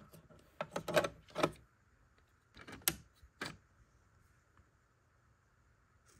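Hard plastic clicks and knocks as the black cover panel of an Epson ET-8550 printer is lifted off and handled: a quick cluster of knocks about a second in, then a couple of sharp clicks around three seconds in.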